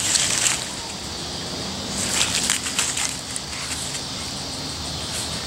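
Dry fallen leaves crunching and crackling underfoot, in two bursts: one right at the start and one from about two to three seconds in.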